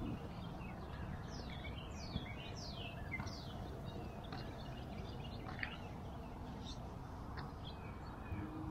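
Small birds singing: a run of quick, falling high notes about a second in, then scattered short chirps, over a low steady background rumble.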